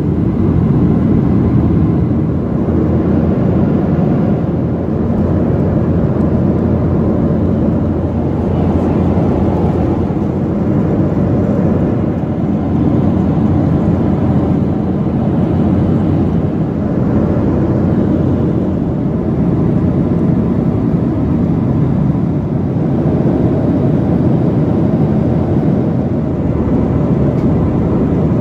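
Steady in-flight cabin noise of a Boeing 737-700 heard from a window seat over the wing: an even, low rush of airflow and CFM56-7B engine noise.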